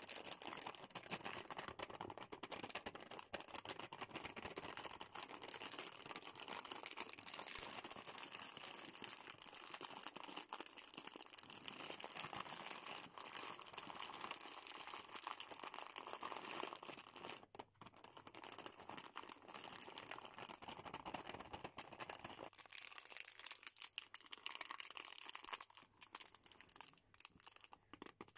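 Close-up crinkling and rustling of plastic packaging squeezed and turned in the fingers: a clear plastic bag of chocolate-coated candies. The crackling becomes sparser for the last several seconds, while a fruit-bar wrapper is handled.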